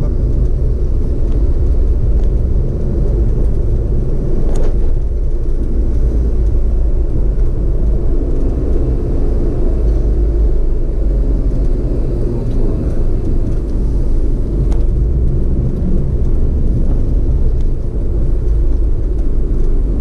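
Vehicle driving at a steady pace, a continuous low rumble of engine and tyre noise heard from on board.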